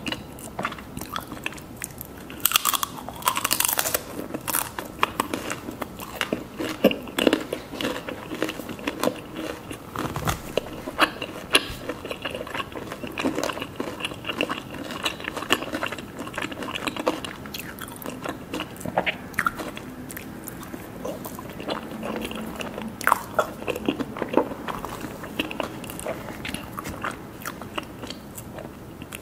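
A person biting and chewing mousse cake close to the microphone, with many short, irregular mouth and teeth clicks.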